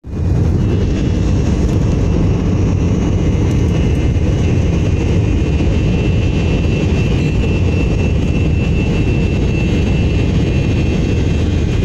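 Airliner engine and cabin noise heard from inside the cabin as the plane moves on the ground: a loud, steady low rumble with a thin high whine over it.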